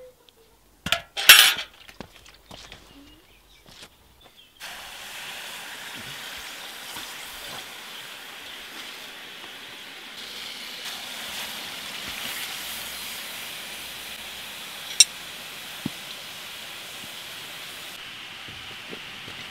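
Hot loam casting moulds, freshly poured with bronze, quenched in a bucket of water: a loud splash about a second in, then a steady hissing sizzle as the water boils against the hot moulds, with a single sharp crack late on.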